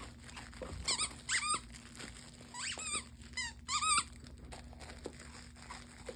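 Squeaker in a plush dog toy squeaking about five times in short, wavering bursts as a dog chews it, mostly in the first four seconds, with faint clicks of the toy being bitten.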